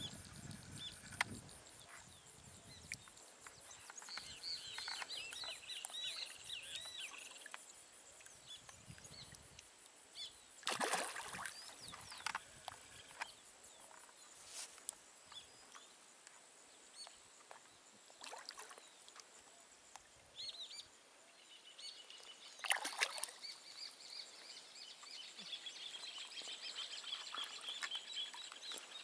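Fish splashing at the surface of a farm pond as they snap up floating feed pellets: a few short, separate splashes, the loudest about a third of the way in and again near the end. Birds call quietly throughout.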